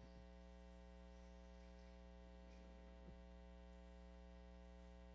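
Near silence with a steady electrical hum.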